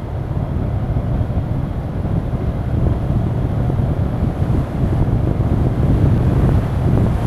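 Steady low wind rumble buffeting the microphone of a camera moving along a street, mixed with road noise from the ride.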